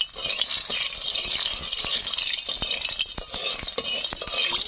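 Hot oil sizzling in a metal kadai, with a metal spatula scraping and clicking against the pan as it is stirred through the oil.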